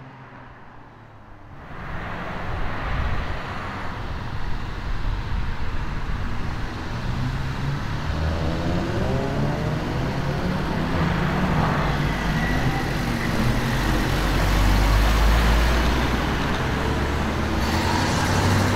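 Car engines pulling away and accelerating past, the engine note rising in pitch and growing louder from about eight seconds in.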